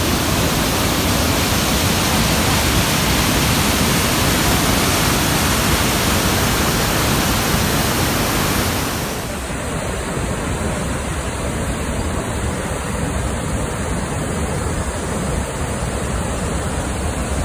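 Loud, steady rushing of whitewater as a mountain river pours over rocks and a waterfall, dropping slightly in level about halfway through.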